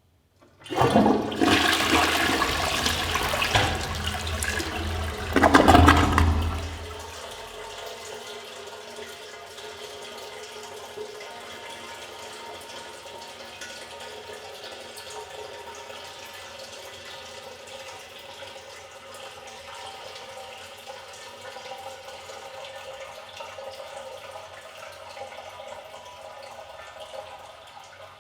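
Toilet flushing: a loud rush of water starting about a second in, with a second surge around five to six seconds. It then drops to a quieter steady trickle and hiss as the tank refills.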